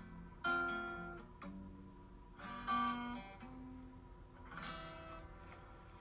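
Background music: a guitar playing three slow chords, each struck and left to ring out, with no singing.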